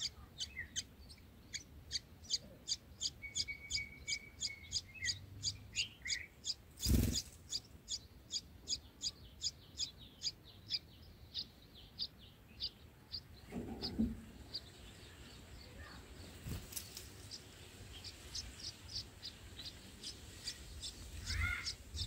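Red-whiskered bulbul nestlings begging at the nest: a rapid run of short, high chirps, about three a second, that thins out and fades after about ten seconds. A few short lower calls come in between, with one near the end, and there is a sharp knock about seven seconds in.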